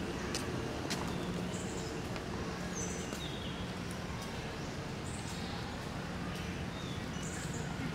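Outdoor ambience among trees: a steady background hiss with a low hum that comes and goes, a few faint clicks in the first second, and short high chirps that step down in pitch, about three seconds in and again near the end.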